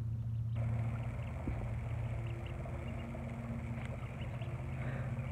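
A steady low machine hum, like a motor running at idle, with faint short high peeps from ducklings over it.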